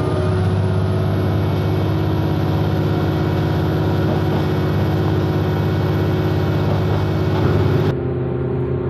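Diesel engine of a KRD diesel railcar running steadily under load, heard inside the passenger car as an even hum. Near the end the hum changes abruptly to a slightly different steady pitch.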